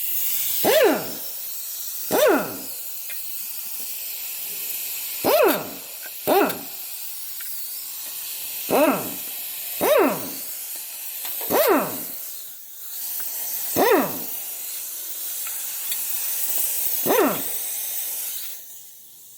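Impact wrench run in nine short bursts, each a brief whir that drops in pitch as it winds down, spinning out the flywheel bolts. A steady hiss runs underneath.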